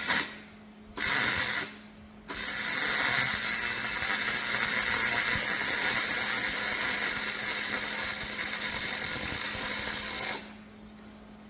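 Arc welding on a steel flatbed frame: two short crackling tacks, then one continuous bead of about eight seconds that stops abruptly. The welder's settings are still being dialed in.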